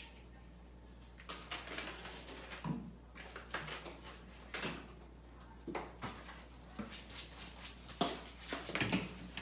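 Several cats' paws scuffing on a wood-look laminate floor: a run of short, quick swishing scrapes, the "sha-sha-shak" sound, starting about a second in.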